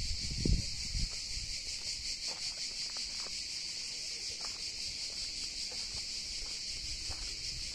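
A steady, high-pitched chorus of insects throughout, with a few low thumps in about the first second.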